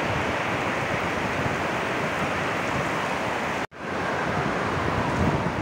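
Heavy rain pouring down steadily, a constant dense hiss. It cuts out for an instant about three and a half seconds in, then continues.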